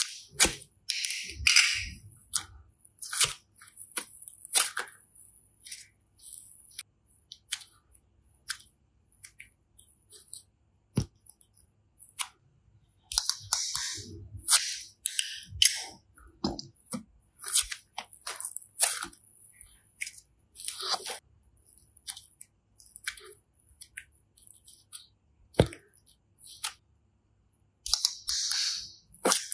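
Slime being squeezed and stretched by hand: sticky clicks and pops at an uneven pace, with short bursts of crackly hiss.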